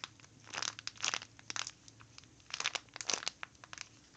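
Crinkling of thin plastic, in several short crackly bursts with quiet gaps between, as a squishy toy is handled.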